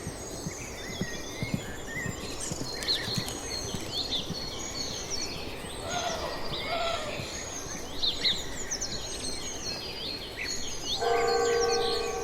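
Village ambience with many small birds chirping and twittering throughout. A few low knocks come in the first two seconds, a two-note call about halfway through, and a steady pitched tone near the end, which is the loudest sound and lasts a little over a second.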